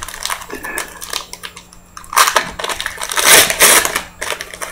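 A trading card pack's foil wrapper being torn open and crinkled by hand, in a series of crackling rustles that are loudest a little past the middle.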